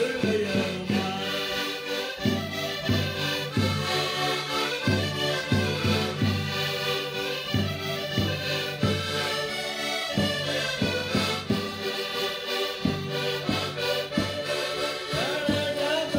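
Several Portuguese concertinas (diatonic button accordions) playing a traditional folk tune together in an instrumental passage without singing, the melody over a steady pulse of bass-and-chord notes.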